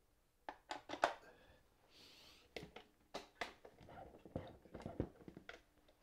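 Tools and small items knocking and clattering on a wooden workbench as they are picked up, moved and set down: a quick run of knocks about a second in, a brief scrape around two seconds, then more scattered knocks, the heaviest about five seconds in.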